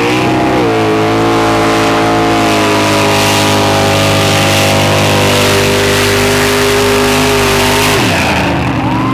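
Race truck engines at full throttle on a drag run: the revs climb, hold at a high, steady pitch for about seven seconds, then fall off as the throttle is lifted, with a short rev rising again at the end.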